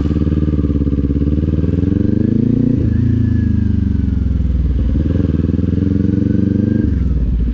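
Kawasaki Z400 parallel-twin motorcycle engine under way at town speed. The revs climb, dip sharply about three seconds in, pick up again and settle, then dip once more near the end.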